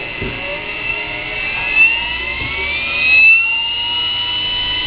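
Sherline mini lathe's electric motor whining as its variable speed control is turned up: the pitch rises steadily, then levels off into a steady high whine about four seconds in. A small knock sounds right at the start.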